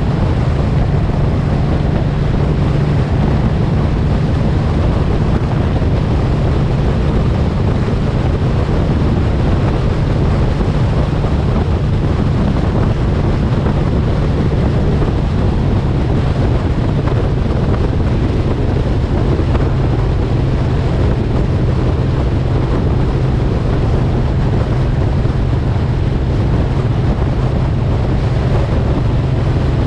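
Suzuki M109R's 1783 cc V-twin engine running at a steady cruise, with wind rushing over the microphone.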